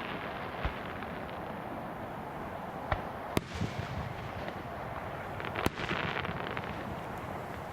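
Fireworks going off: four sharp bangs spread over several seconds, the last followed by a stretch of crackling, over a steady background hiss.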